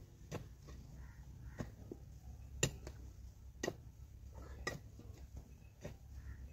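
A metal digging bar jabbed down into hard, packed earth, striking with a sharp knock about once a second, about six main strokes.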